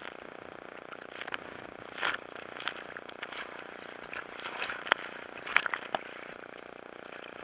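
Small waves slapping and splashing against a camera's waterproof housing at the sea surface: irregular sharp splashes and crackles over a steady hiss.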